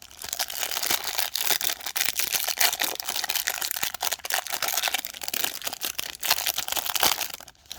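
Trading-card hanger box packaging being opened by hand: a dense, continuous crinkling and crackling of plastic wrapper and card packaging, with many small clicks. It stops abruptly near the end.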